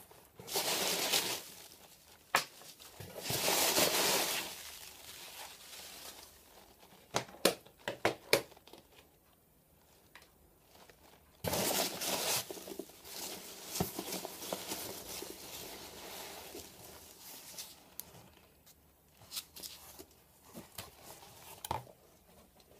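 A shipping package being opened by hand: tape and packing material tearing and crinkling in several bursts, with scattered sharp clicks and knocks between them.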